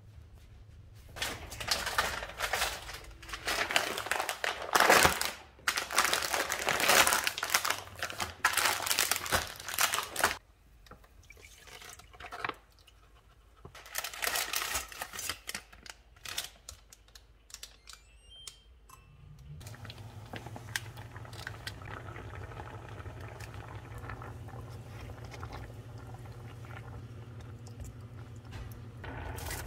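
Plastic meal-kit packaging crinkling and liquid pouring from a pouch into an enamel pot, in loud irregular bursts. Later a steady low hum sets in under faint stirring.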